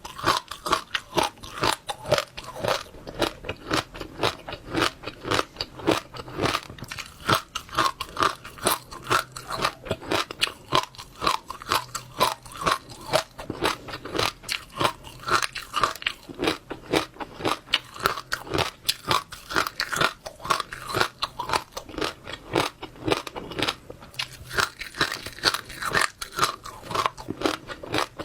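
Close-miked chewing of wet passionfruit seeds: a steady run of crunches and small pops, about three or four a second.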